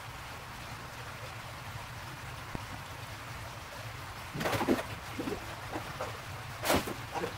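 Water running steadily through a large aquarium's circulation with a low hum, then, from about four and a half seconds in, several short splashes at the water surface of the tank, the loudest near the end.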